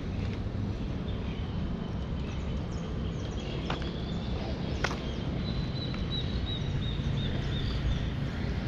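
Park ambience: a steady low rumble under birds chirping, with a run of quick high chirps, about four a second, in the second half. Two sharp clicks come a second apart near the middle.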